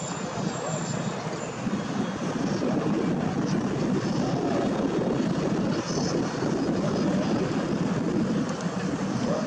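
F1H2O race boat's outboard engine running hard at high revs as the boat corners, mixed with the rush of spray off the hull. It grows louder about two seconds in and then holds steady.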